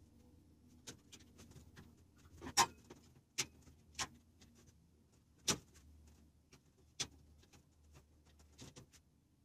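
Irregular sharp knocks and clicks from hands and fittings handling a water heater unit on a counter, about half a dozen in all. The loudest is about two and a half seconds in.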